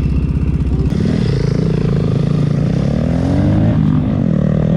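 Motorcycle engine at a low, pulsing idle, then revving up from about a second in as the bike pulls away, its pitch climbing, dipping once near the end and climbing again.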